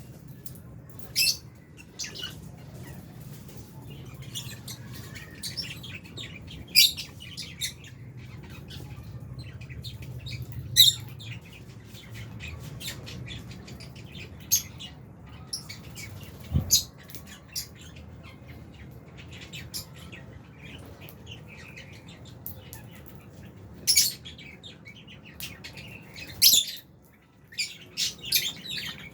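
Lovebirds in an aviary colony, including Fisher's lovebirds, giving short, sharp high-pitched chirps and squawks scattered throughout, with a quick cluster of calls near the end. A low steady hum runs underneath.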